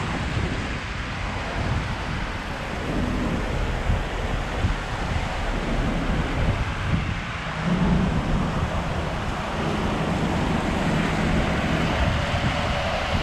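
Steady outdoor rush of wind buffeting the microphone mixed with traffic noise on a wet road, with a louder low swell about eight seconds in.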